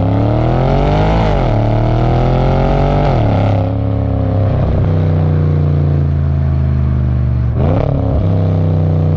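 Tuned Audi S6's 4.0-litre twin-turbo V8 through its Milltek full-system exhaust, heard at the tailpipes under acceleration: the revs climb, drop with an upshift about a second in, and climb again until about three and a half seconds in. It then settles to a steady lower note, with a short rev blip about three-quarters of the way through.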